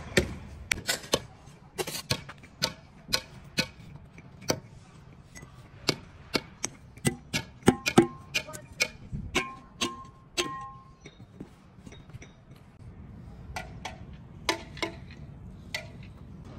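Irregular sharp knocks of metal striking metal, about one or two a second and thickest around the middle. A few give a short metallic ring.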